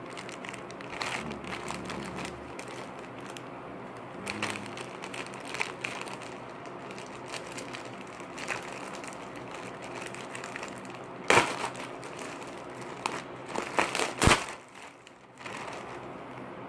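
Packaging crinkling and rustling as it is handled and pulled open, with two loud sharp cracks in the second half.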